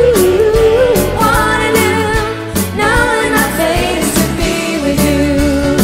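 Live pop band playing a 1970s-style song: a drum kit keeps a steady beat under keyboards and electric guitar, with women's voices singing the melody.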